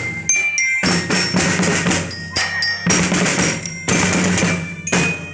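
A school drum band playing: snare and bass drums beat a marching rhythm with a strong accent about once a second. Short high ringing tones sound over the drums.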